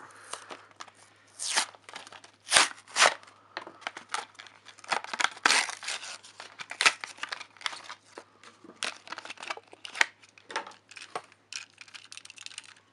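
Cardboard-and-plastic blister pack of a die-cast toy car being torn open by hand: a string of irregular rips, crinkles and sharp clicks.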